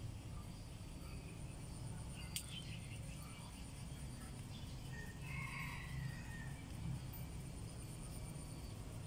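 Quiet outdoor ambience: a steady low rumble with a faint high steady hum, one sharp click about two and a half seconds in, and a brief high chirp a little past five seconds.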